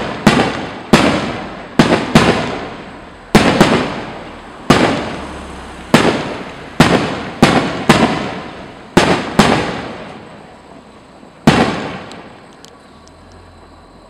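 Aerial firework shells bursting overhead, about a dozen loud bangs at irregular intervals, each trailing off in a long echo. The bangs stop about two seconds before the end, leaving a few faint crackles.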